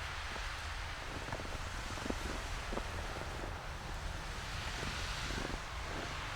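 Storm wind buffeting the microphone: a steady low rumble under a rushing hiss that swells about two-thirds of the way through, with a few faint scattered clicks.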